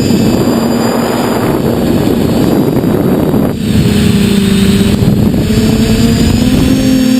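TBS Discovery quadcopter's brushless motors and propellers running in flight, a steady whine picked up by the onboard camera. A rush of wind noise covers the first half and drops away about three and a half seconds in, and the whine then carries on with a slight shift in pitch.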